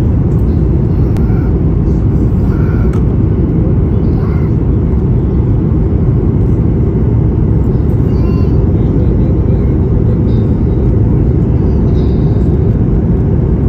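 Jet airliner cabin noise during descent: a steady, even low rumble of engine and airflow heard from inside the cabin.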